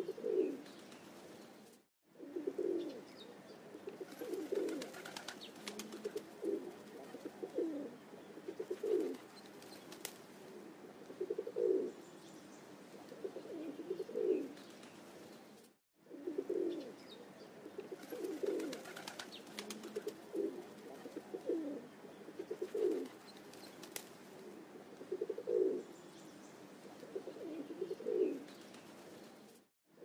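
Low, dove-like cooing bird calls repeated about once every second or so, with brief dead-silent cuts about two seconds in and near the middle.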